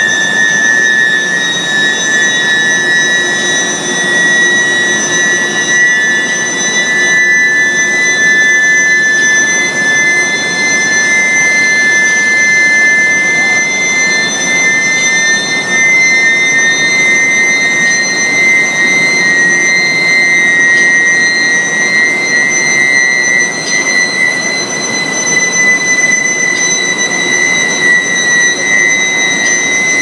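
Induction billet heater running, its coils giving a loud, steady high-pitched whine made of two close pitches that slowly drift apart and back together, with fainter higher whines above, over a constant hiss of plant noise.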